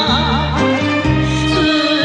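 Background music: a wavering, vibrato-laden melody over a bass line that changes notes every half second or so.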